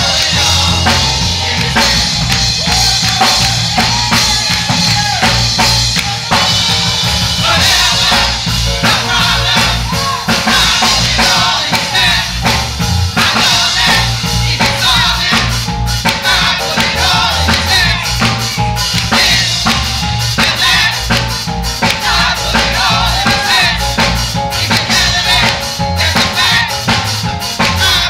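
Live gospel band music: a drum kit with kick, snare and rimshots keeping a steady beat under a moving bass line, with singing over it.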